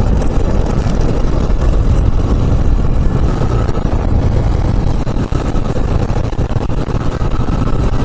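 Yamaha FZ V2 motorcycle ridden over a rough, broken gravel road: a steady rush of engine, tyre and wind noise on the rider's microphone.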